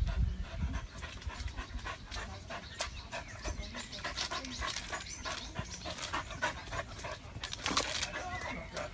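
A dog panting hard, a rapid, irregular run of breaths.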